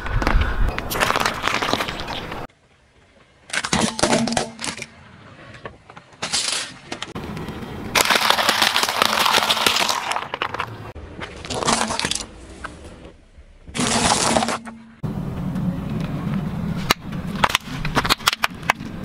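A car tyre rolling slowly over objects on asphalt and crushing them, with a run of cracks, crunches and squelches. The sound comes in several separate stretches a few seconds long, each breaking off suddenly.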